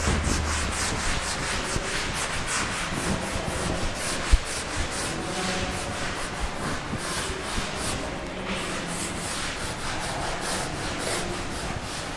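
Blackboard duster rubbing chalk off a blackboard in quick back-and-forth strokes, a steady scratchy wiping. One sharp knock about four seconds in.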